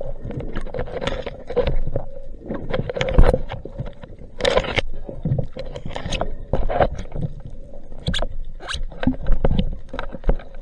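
Seawater sloshing and splashing against an action camera's underwater housing at the surface, broken by irregular knocks, clicks and scrapes as the camera is jostled.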